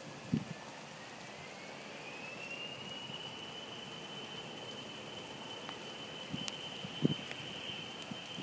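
Distant aircraft engine whine rising in pitch over the first few seconds and then holding steady, as a plane spools up on the runway. Steady rain hiss underneath, with a few dull thumps on the microphone.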